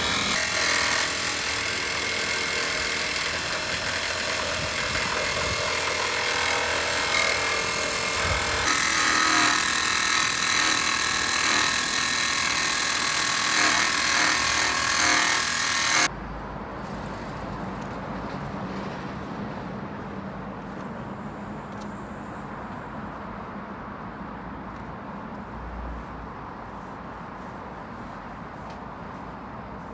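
A power tool runs loud and steady for about the first half, then cuts off suddenly, leaving a quieter steady background hum of a workshop or road.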